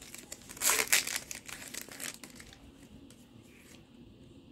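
Foil booster-pack wrapper crinkling as it is opened, with a loud burst of crinkling about a second in, then smaller rustles that die away to quiet handling of the cards.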